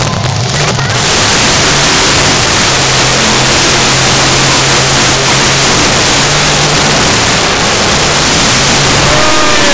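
Bigfoot monster truck's engine running loud and steady at high revs, heard over the wheels churning the dirt as the truck spins and pops up on its wheels.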